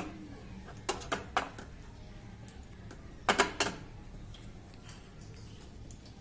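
Hands rolling kopta balls in gram flour in a steel bowl, with light knocks and clicks against the bowl: a few about a second in and a louder cluster about three and a half seconds in.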